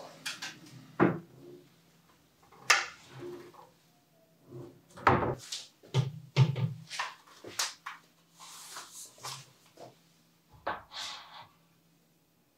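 Irregular knocks, thunks and light clatter of furniture and a picture ledge being handled, moved and set against a wall, with the sharpest knocks about a second in, near three seconds, and in a cluster between five and eight seconds.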